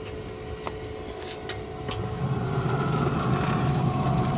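Weber SmokeFire pellet grill in shutdown mode with a grease fire burning inside: a steady hum, then about two seconds in a louder low rumble sets in, with scattered crackles.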